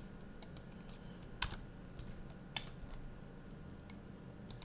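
Scattered clicks of computer keys being pressed, a handful of separate taps with two louder ones about a second and a half and two and a half seconds in, over a low steady hum.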